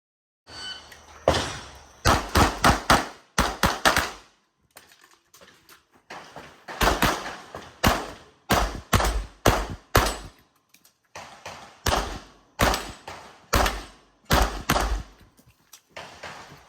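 Handgun fired rapidly during a practical shooting stage: shots come in quick pairs and short strings, with a short break of faint clicks between strings.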